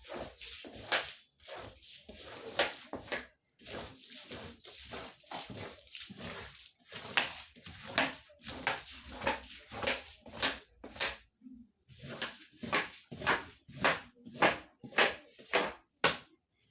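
Wet carpet being scrubbed: irregular swishing strokes, about one or two a second, with short pauses between runs of strokes.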